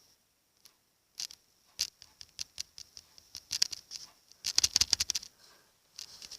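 Homemade shampoo-and-salt slime being handled, giving a run of small sticky clicks and crackles that start about a second in and come thickest a little past the middle.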